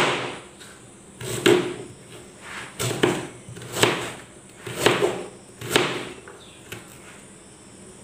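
Kitchen knife chopping beetroot on a plastic chopping board: about six sharp knocks, roughly a second apart, that stop about six seconds in.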